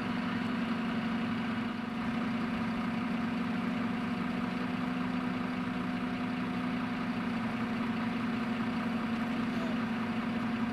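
Diesel train's engine idling with a steady, unchanging hum.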